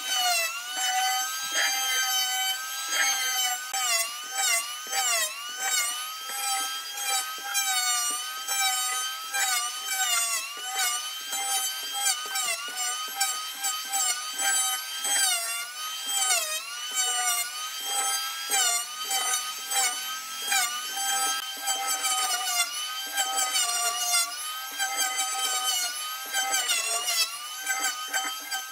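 Handheld electric planer shaving a wooden tabletop, its motor whine dipping in pitch over and over as the blades bite into the wood and recovering between passes.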